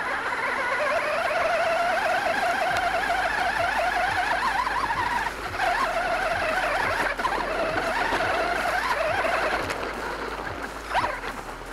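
Onboard sound of a radio-controlled monster truck driving: its motor and drivetrain whining steadily, the pitch wavering with throttle and terrain, with a short knock near the end.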